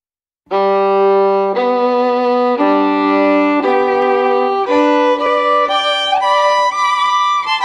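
Background music: a violin playing a slow melody of sustained bowed notes, changing about once a second, starting about half a second in.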